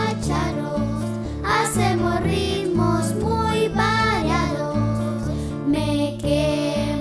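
A children's choir singing a song with instrumental accompaniment that has a steady, repeating bass line.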